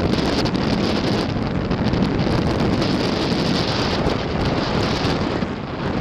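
Strong wind buffeting the microphone in gusts, over the noise of sea surf.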